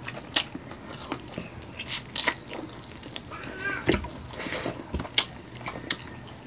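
Chewing, sucking and lip-smacking on adobo-braised chicken feet eaten by hand, a string of irregular wet smacks and sharp little clicks.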